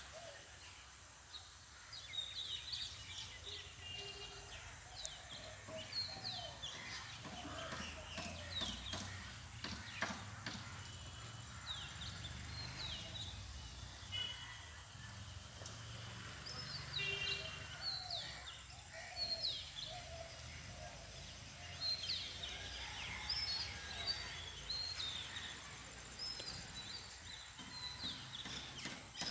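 Many small birds chirping and twittering: short, quick falling calls repeated throughout over a low background rumble.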